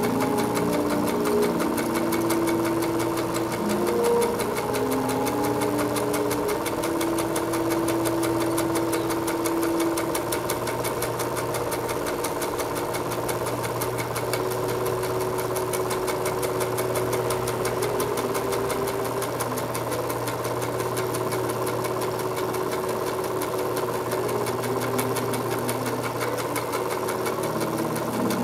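Home-movie film projector running: a rapid, steady clatter of the film being pulled through the gate, over a steady motor hum. A few held low tones shift in pitch in steps during the first ten seconds or so.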